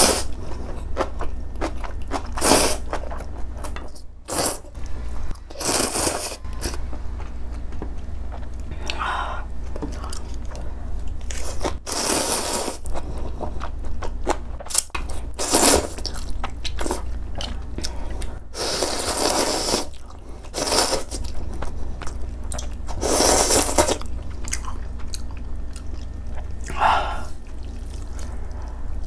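Close-miked eating of spicy instant ramen with soft tofu: loud slurps of noodles every few seconds, with chewing in between.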